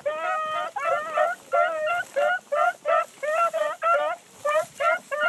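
A pack of hounds giving voice together: quick, overlapping bays at about four a second, with one longer drawn-out bay in the first second.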